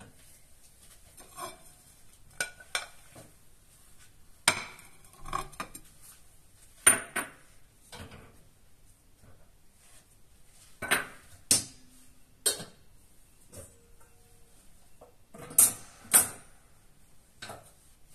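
Kitchenware clinking and knocking as cooked rice is dished out onto ceramic plates: about fifteen separate knocks and clinks. The loudest come about seven seconds in and twice near the end.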